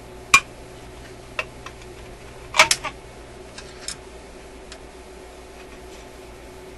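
Scattered sharp metal clicks and taps from a small tool working at a stubborn screw on a tube radio's metal shield can and chassis. There is a single loud click about half a second in and a quick cluster of clicks a little past halfway.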